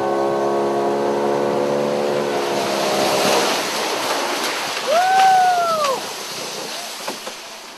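Steady drone of a boat motor over water noise, fading out about three and a half seconds in. Around five seconds in comes a single call that rises and then falls in pitch, lasting about a second.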